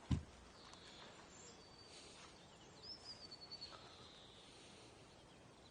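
Faint birdsong: a few high chirps and a wavering, warbling call about three seconds in. A brief low thump comes just after the start.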